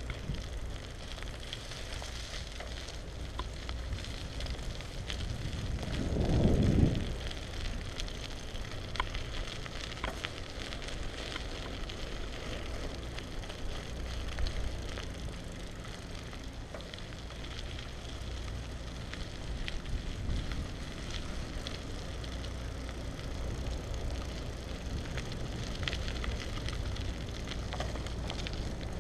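Wind rumbling on a bicycle-mounted action camera's microphone, over the hiss and crackle of bike tyres rolling on wet pavement, with scattered small clicks. A brief, louder rush about six seconds in.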